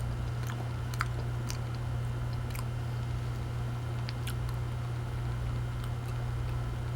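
A person chewing banana, with scattered wet mouth clicks over a steady low electrical hum.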